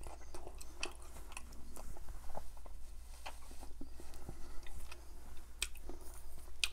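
Close-up chewing of a crispy fried chicken drumstick coated in butter chicken sauce: scattered wet mouth clicks and smacks, irregular, over a faint steady low hum.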